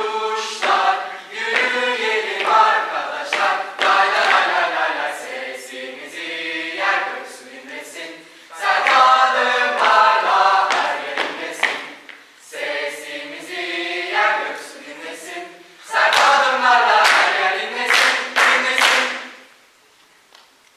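Mixed choir of teenage girls and boys singing a cappella, in sung phrases with short breaks; the singing ends shortly before the end.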